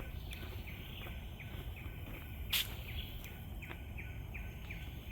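A forest bird calling repeatedly in short, falling chirps, about two to three a second, over a steady low rumble. A brief sharp rasp sounds a little past halfway.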